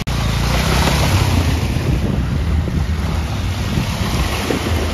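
Heavy wind noise on the microphone: a loud, steady low rumble with hiss over it.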